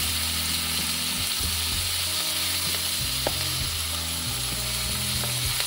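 Onions, chopped tomatoes and green chillies sizzling in oil in a kadhai over a medium-to-low flame: a steady frying hiss with a low hum beneath it, and one light tap about three seconds in.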